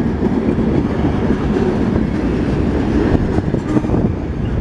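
Freight train cars loaded with garbage containers rolling past: a steady rumble of steel wheels on the rails, with a few light clacks about three seconds in.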